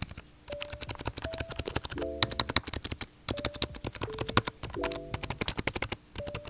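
Keys of a Logitech full-size keyboard being tapped in a rapid, uneven run of clicks on the numpad side, heard close to the keys.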